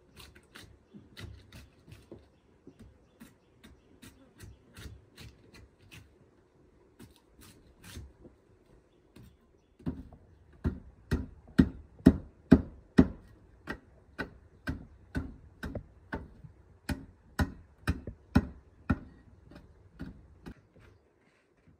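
Light knocks of wood being handled, then from about ten seconds in a machete chopping into wood: sharp, loud strikes about two a second, in runs with short pauses.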